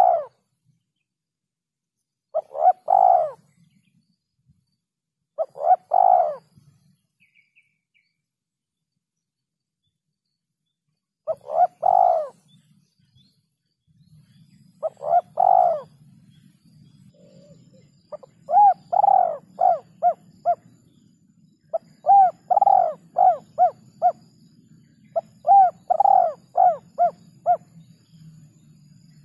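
Spotted dove cooing: single coos a few seconds apart, then from about two-thirds in, longer phrases of five or six quick notes. A faint low hum runs under the later part.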